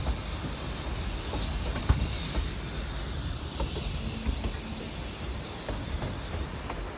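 Narrow-gauge steam train heard from a riding passenger car: the steady rumble and rattle of the cars on the track under a constant hiss, with a sharp knock about two seconds in.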